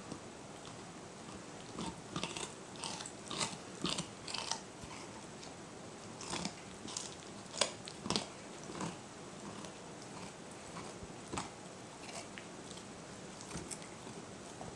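A dog crunching and chewing a carrot, with a run of crisp bites from about two to nine seconds in, then only an occasional single crunch.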